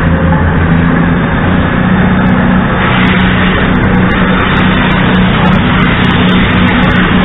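CrossCountry Voyager diesel multiple unit's underfloor diesel engines running as the train moves past, a steady low drone with a rushing noise that grows louder about three seconds in.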